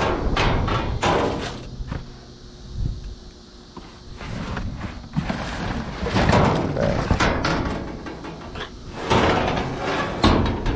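Several bouts of knocking and clattering, with a quieter stretch about two to four seconds in: hard objects being handled and banged about.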